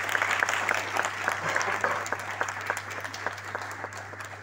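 Audience applauding, many hands clapping at once, strongest at first and slowly thinning out.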